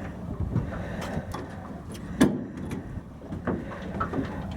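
Low steady rumble of a fishing boat, with scattered knocks and clicks on board; the loudest is a sharp knock about two seconds in.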